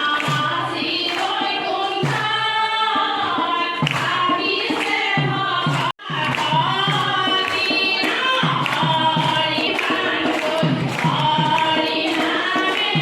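A group of voices singing a devotional chant together, over a steady rhythmic beat of sharp strokes. The singing breaks off for an instant about six seconds in and carries straight on.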